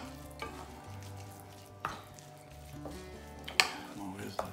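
A utensil stirring and folding mashed sweet potato into shredded duck confit meat in a dish, with a few sharp clicks of the utensil against the dish.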